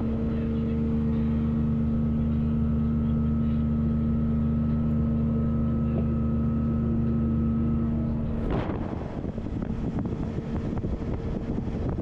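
Mercruiser 4.3 V6 sterndrive engine running steadily under way, its misfire cured by a replacement ignition coil. About eight seconds in, wind rushing over the microphone and water noise take over.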